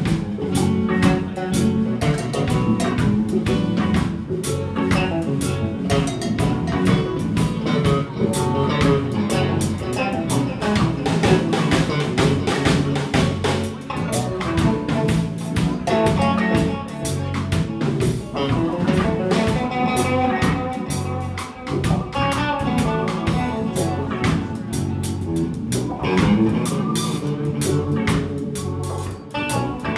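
A live band playing a rock song, with electric guitars, bass, keyboards and a drum kit.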